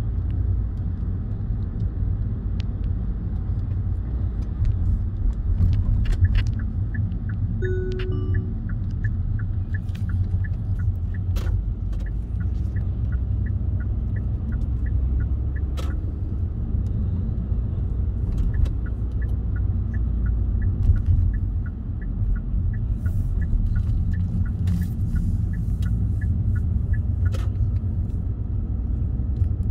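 Car cabin noise while driving in city traffic: a steady low rumble of engine and tyres. A turn-signal indicator ticks regularly, a few times a second, from about six seconds in until near the end. There is a short beep about eight seconds in.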